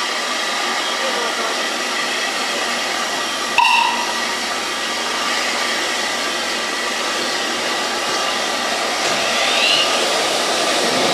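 Steam locomotive letting off steam out of sight: a loud, steady hiss, broken once by a short sharp knock about three and a half seconds in.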